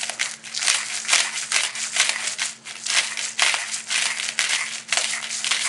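Hand-held spice grinder twisted over a bowl of food: a quick run of gritty grinding strokes, about three or four a second.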